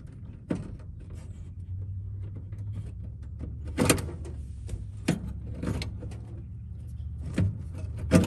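Scattered sharp clicks and knocks of hands working among the wiring under a car's dashboard, the loudest about four seconds in, over the low steady hum of traffic passing on the street.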